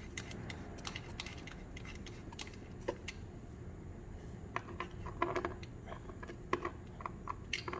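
Scattered light clicks and taps of parts being handled as a folding safety mechanism is worked loose by hand, thickest in the second half.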